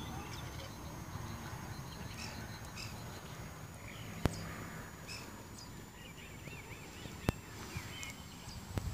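Outdoor ambience of small birds chirping and calling over a low rumble of wind, with two sharp clicks about three seconds apart.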